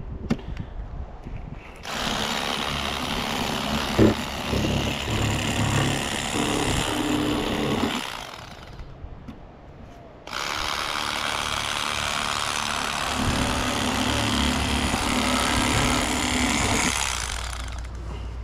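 Corded electric fillet knife running in two stretches of about six seconds each, with a pause of about two seconds between, its reciprocating blades buzzing as it slices panfish fillets. A sharp knock about four seconds in.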